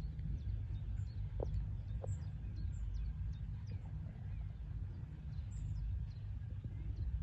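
Outdoor ambience: small birds chirping over a steady low rumble, with the muffled footfalls of a horse moving on a sand arena.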